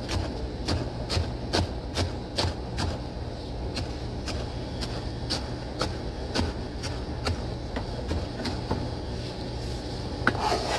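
Knife chopping an onion on a cutting board: steady knocks of the blade on the board, about two or three a second, over a constant low hum.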